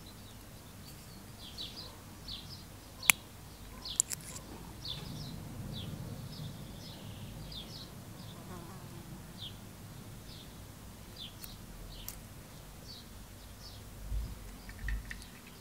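An insect buzzing low and unsteadily close by, with short high chirps repeating throughout. Two sharp clicks about three and four seconds in come from the small metal spinner parts being handled, and two dull thumps sound near the end.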